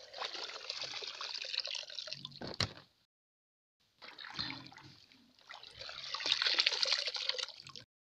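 Water splashing and trickling as a plastic mesh basket scoops azolla from the pond and the water drains back through the mesh, in two bouts with a short pause between. A single sharp knock comes near the end of the first bout.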